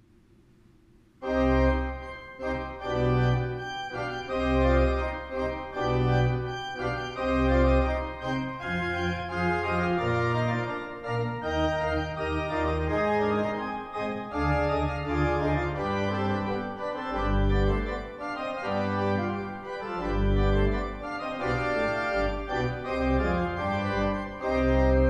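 Sampled pipe organ (Hauptwerk, Cappel sample set) played from a Viscount Chorale 3 console, starting about a second in: a lively allegro on a bright registration of many sustained notes over a pedal bass line.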